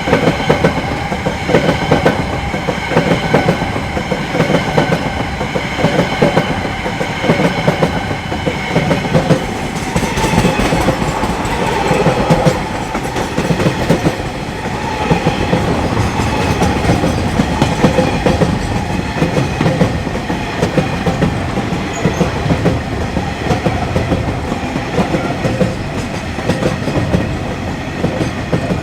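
A freight train's wagons rolling past, their wheels clicking over the rail joints in a rapid, steady clatter. For the first ten seconds or so, a steady high ringing tone runs over the clatter.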